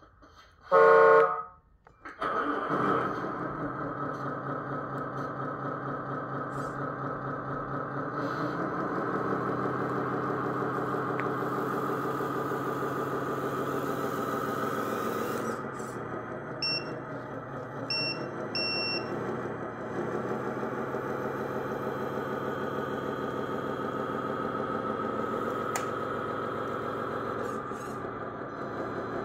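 Electronic sound module of a 1/14 RC truck. About a second in comes a loud horn blast, then a simulated diesel engine runs steadily as the truck pulls the loaded trailer. Three short high beeps sound about a second apart around the middle.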